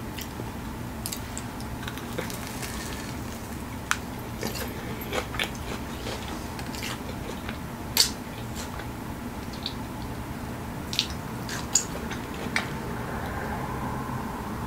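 Close-miked chewing of a Flamin' Hot Cheetos-coated fried chicken wing: scattered short crunches and wet mouth clicks, about a dozen spread through.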